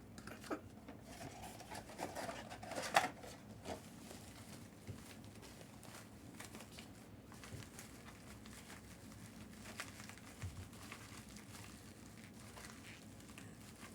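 Rustling and tearing of packaging being opened by hand, a stuck pull string on a mystery autographed baseball box being worked free, with a sharp rip about three seconds in. After that only faint, scattered handling sounds.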